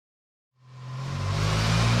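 Turbocharged V6 engine of a VY Commodore revving, fading in from silence about half a second in and getting louder, its pitch climbing slowly and steadily.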